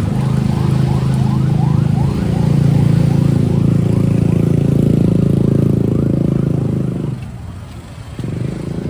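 A motor vehicle engine running steadily close by. It fades away about seven seconds in and picks up again about a second later. A faint short rising whine repeats two or three times a second over the first half.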